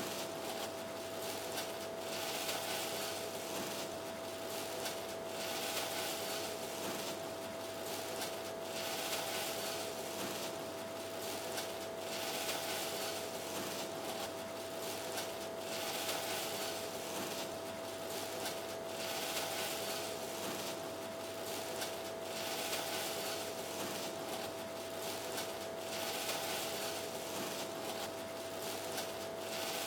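Soft, uneven rustling of breadcrumbs and plastic-gloved hands as squid rings are pressed into panko crumbs, swelling every second or two. Under it runs a steady hiss with a constant thin high whine.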